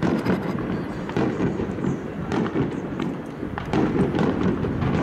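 Fireworks display bursting overhead: repeated booms with crackle, several sharp reports over a few seconds.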